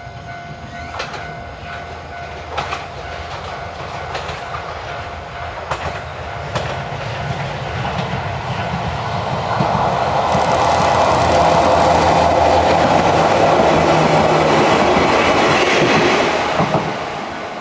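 A two-car Wakayama Electric Railway 2270 series electric train approaching and passing, its wheels clicking over the rail joints. The sound builds steadily, is loudest over the later part as the train goes by, then fades near the end.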